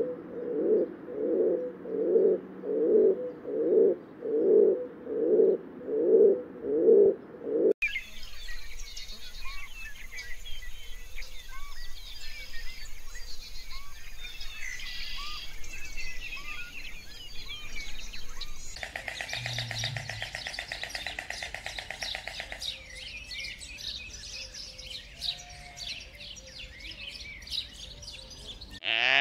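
A low cooing or grunting animal call repeated about ten times, a little over once a second, for the first eight seconds. Then a busy chorus of birds chirping and whistling, with a buzzy trill lasting about four seconds in the middle.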